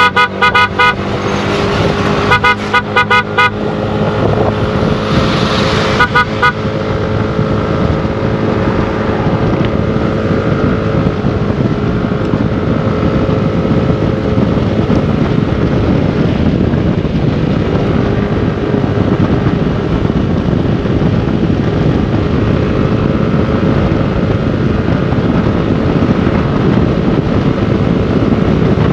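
A vehicle horn beeps in short toots: a few right at the start, a quick string of about five around two to three seconds in, and two more at about six seconds. Under them runs a motorcycle at road speed, its engine drone and wind noise steady.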